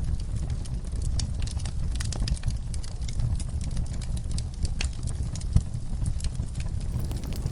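Wood fire burning in a fireplace: a steady low rumble with scattered sharp crackles and pops. One louder pop comes about five and a half seconds in, and the crackling grows busier near the end.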